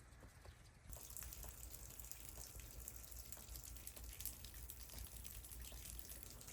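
Meltwater from thawing snow dripping, many small irregular drips, faint and growing louder from about a second in.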